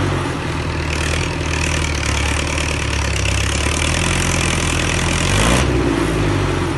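Old Massey Ferguson tractor engine running hard, straining to pull a heavily loaded container-trailer. About five and a half seconds in its pitch shifts and the loud rushing noise eases off.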